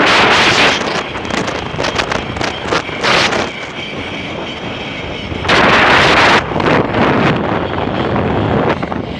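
Wind buffeting a head-mounted camera's microphone as the rider speeds down a zip line at about 30 mph, coming in gusts that are loudest at the start and again about five and a half seconds in. A faint steady whine sits beneath the wind between the gusts.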